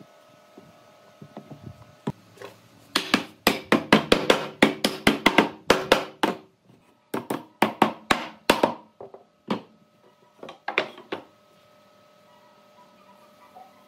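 Hammer tapping on wood in two quick runs of sharp knocks, about five a second, followed by a few single knocks.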